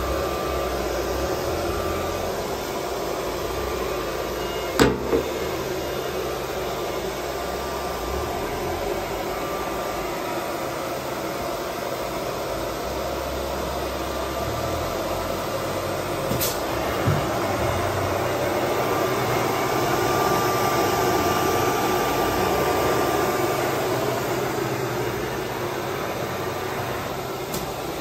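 Vacuum pump for a CNC router's vacuum table, running steadily. A couple of sharp knocks come about five seconds in, and a lighter one around seventeen seconds.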